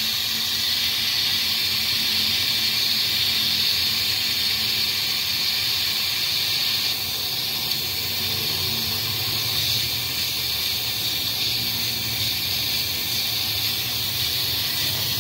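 Steady hiss of a pressurised jet aimed at a throttle body being cleaned of carbon deposits. It runs without a break.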